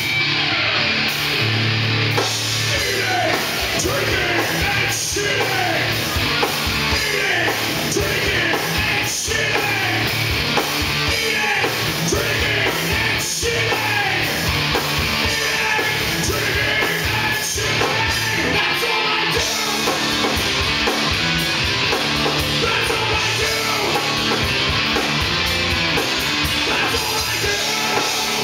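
Live heavy rock band playing loud: distorted electric guitars, bass guitar and drums, with a singer's vocals over them.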